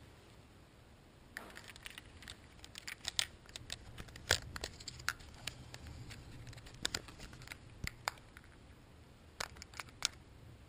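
Handling noise: an irregular run of clicks, taps and rustles as plastic video glasses and their cables are moved about, starting about a second in.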